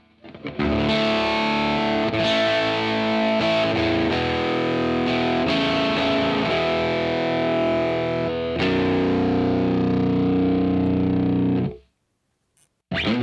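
Schecter Hellcat VI baritone electric guitar played with distortion, fitted with new pickups. It plays a run of held, ringing chords that change every two to three seconds and stop about twelve seconds in. After a brief gap, a new chord is struck near the end.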